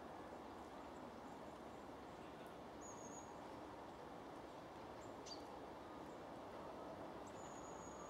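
Faint steady outdoor background hiss with a few thin, very high-pitched calls from small birds at a seed feeder: a short one about three seconds in and a longer one near the end.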